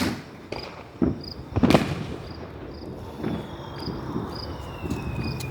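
Roman candle firing: sharp bangs, one at the start and the loudest about 1.7 s in, with smaller pops later. Crickets chirp steadily underneath.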